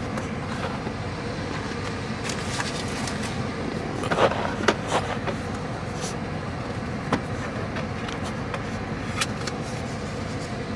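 A steady rumble with a few scattered clicks and knocks, the loudest about four to five seconds in, as belongings are handled and moved about in a car.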